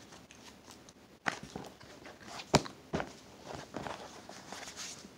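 A small plastic slime container being opened and the slime handled with the fingers: scattered soft clicks and rustles, with one sharp click about two and a half seconds in.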